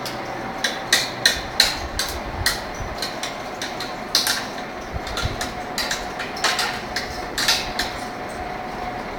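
A run of irregular sharp clicks and knocks, about a dozen, unevenly spaced, over a faint steady hum.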